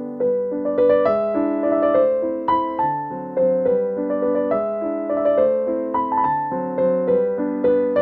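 Background piano music: a gentle melody of struck notes over lower chords.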